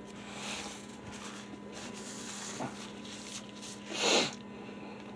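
A man chewing a mouthful of fried chicken sandwich with his mouth closed, with a paper napkin rubbing across his mouth near the start. About four seconds in comes a short, louder breath through the nose. A faint steady electrical hum runs underneath.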